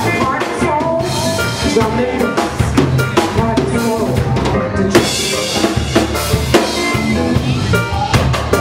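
Live reggae band playing, with the drum kit to the fore over a strong bass line.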